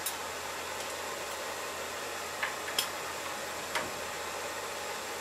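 Steady hiss with a few short, light metallic clicks of hand tools being handled under the truck's front suspension.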